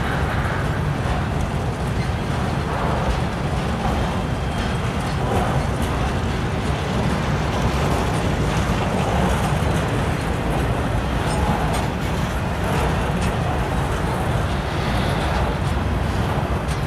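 Freight train rolling past: a steady low rumble of wheels and cars on the rails.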